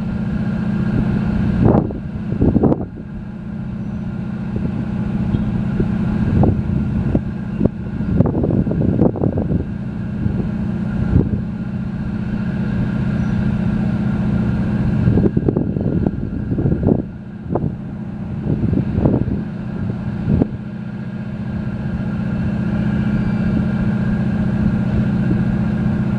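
Diesel engines of a high-speed catamaran ferry running with a steady low drone as it pulls away from the dock, broken by irregular gusts of wind on the microphone.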